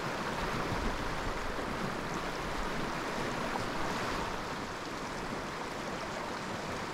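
Fast-flowing river rushing steadily.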